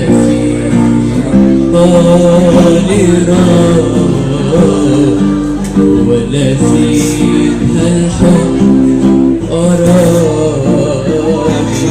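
Music: a plucked string instrument playing with a man singing a wavering melodic line.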